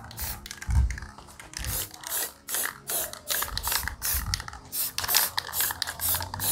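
Aerosol spray-paint can hissing in short, rapid bursts, about three a second, as paint is dabbed onto a metal alloy wheel.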